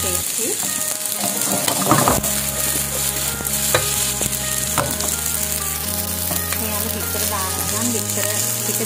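Rice and vegetables sizzling in a hot nonstick frying pan as they are stirred and turned with a silicone spatula, with a few sharp taps and scrapes of the spatula against the pan.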